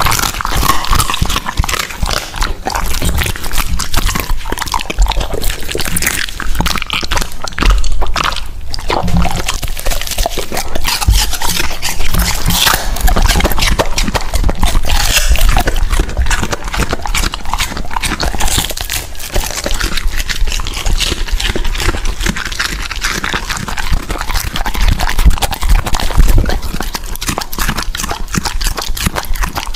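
Dog chewing raw food and vegetables, a dense run of wet lip-smacking and chewing clicks, each mouthful of vegetable smacked over and over.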